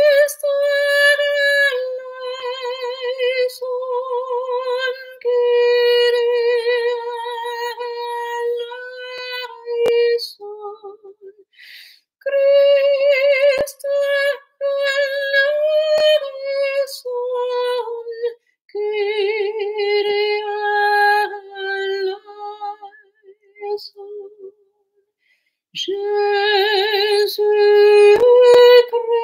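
A woman singing solo in long, held notes with vibrato, with a couple of short breaks.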